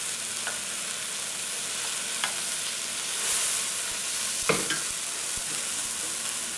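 Quinoa and a tomato-and-pea base sizzling steadily in a stainless steel pan as they are stirred with a metal spoon. The spoon clicks against the pan a few times, loudest about two thirds of the way through.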